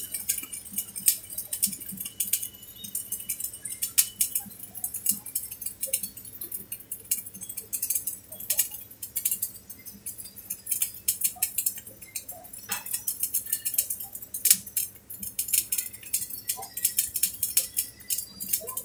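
Electric arc welding: the arc crackles and spits with spatter, a steady irregular run of sharp pops and clicks.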